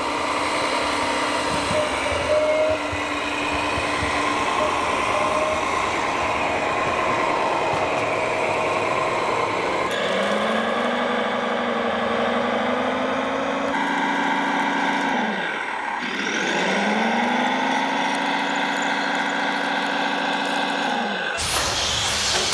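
Diesel engine sound from RC construction models, running steadily at first. About halfway through it revs up, holds, dies down and revs up again. Near the end it gives way to a high whine.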